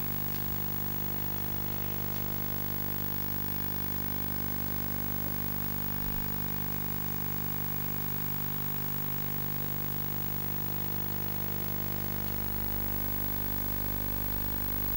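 Steady low hum with hiss from the hall's sound system, a stack of even low tones that holds without change.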